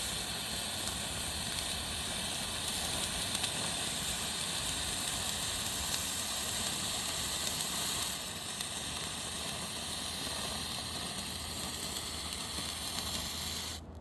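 A novelty firework, such as a fountain or sparkler, burning with a steady hiss that drops a little in level partway through.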